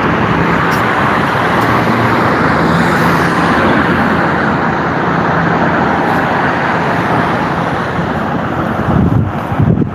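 Steady street traffic noise from passing road vehicles, with a few brief low rumbles near the end.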